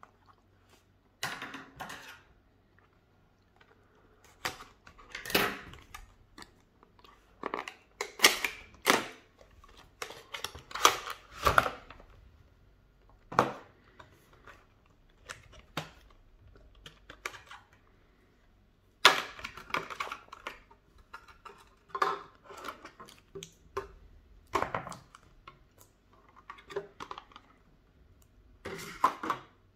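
Cardboard box and clear plastic packaging tray being opened and handled: irregular clusters of crackling, rustling and plastic clicks, with short quiet gaps between.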